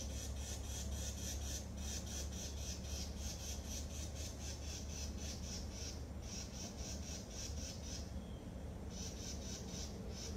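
Insects chirping in a rapid, even pulse of high chirps, about six a second, in long runs broken by short pauses, over a steady low rumble.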